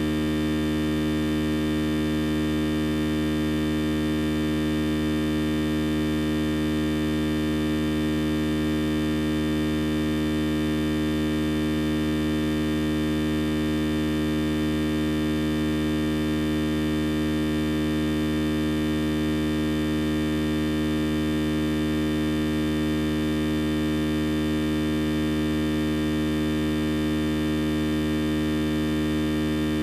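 A steady, unchanging hum made of many held tones, loudest in the low range, with no break or change throughout.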